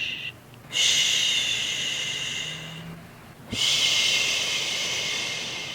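A woman shushing, a long breathy "shhh" whispered again and again: the tail of one, then two full hushes, each starting strong and fading away over about two and a half seconds.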